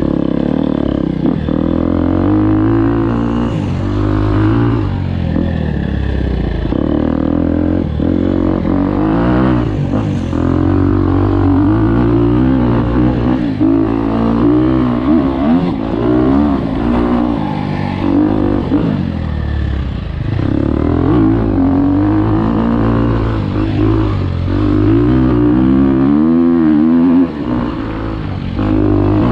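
Dirt bike engine heard from on the bike while riding a dirt trail, its pitch rising and falling again and again with throttle and gear changes.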